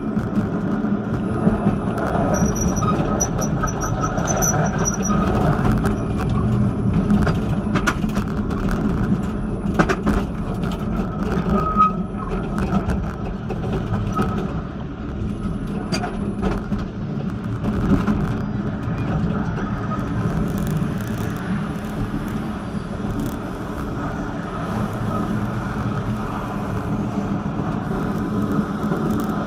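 Vityaz-M low-floor tram running along the track, heard from the cab: a steady rumble of wheels and motors with occasional sharp clicks. A quick run of short high beeps sounds a few seconds in.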